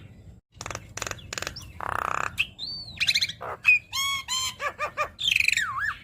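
Javan myna singing a varied medley: harsh rasping notes, then an arching whistle, quick warbled phrases, a few falling repeated notes and a dipping whistle near the end.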